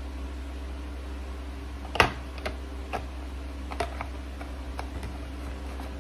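Hands handling a phone wall charger and a coiled USB cable in the box's cardboard tray. The loudest sound is one sharp click about two seconds in, as the charger is set down, followed by a few lighter clicks and taps. A steady low hum runs underneath.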